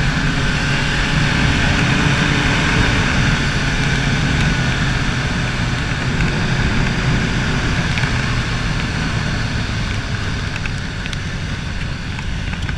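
BMW K75 motorcycle's 740 cc inline three-cylinder engine running steadily under way, with wind rushing over the microphone. It grows a little quieter in the last few seconds.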